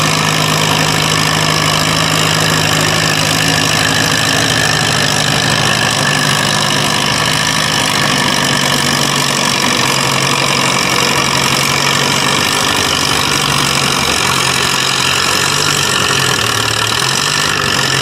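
Farmall M tractor engine running hard under load as it pulls a weight-transfer sled, with a steady, loud drone. Its pitch sags a little in the last few seconds as the sled's weight bears down.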